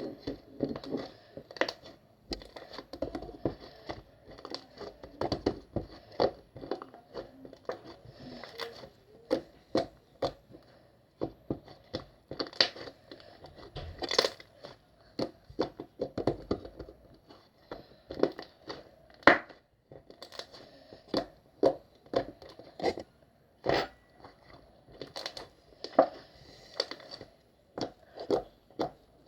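Irregular crinkling, crackling and tapping handling noises close to the microphone, a sharp click or crackle about once or twice a second.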